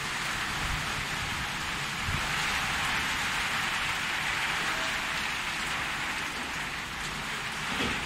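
Heavy rain falling steadily on pavement, a dense even hiss.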